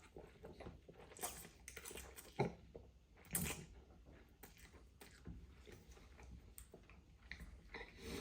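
A person chewing and eating spicy stir-fried noodles, with soft mouth clicks and smacks throughout and two louder sharp sounds about two and a half and three and a half seconds in.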